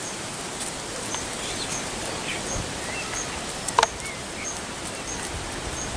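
Outdoor ambience with a steady rushing background and small birds chirping faintly at a fairly even pace. A single short, sharp call stands out about four seconds in.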